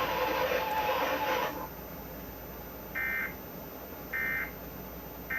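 Emergency Alert System end-of-message data bursts: three short, buzzy two-tone digital chirps about a second apart, signalling the end of the relayed severe thunderstorm warning. They follow distorted broadcast audio that cuts off about a second and a half in.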